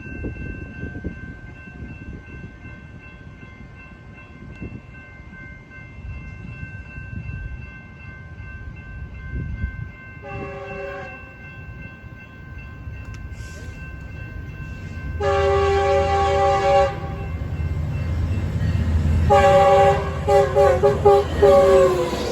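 Locomotive air horn sounding a chord of several notes: a short blast about ten seconds in, then a long blast and a final long blast over the low rumble of the passing train, the pitch of the last blast dropping near the end.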